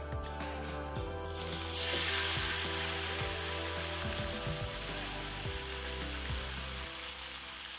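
A whole pressure-cooked chicken frying in a shallow pan of hot oil: about a second and a half in a loud, steady sizzle starts as it goes into the oil to be crisped, over soft background music.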